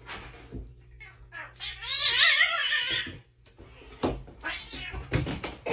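A cat yowling: one drawn-out, wavering cry about two seconds in, lasting a second and a half. A few short knocks follow near the end.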